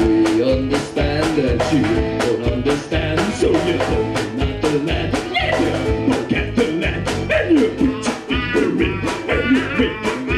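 Live acoustic folk music: two acoustic guitars strummed in a steady rhythm, with a voice singing over them.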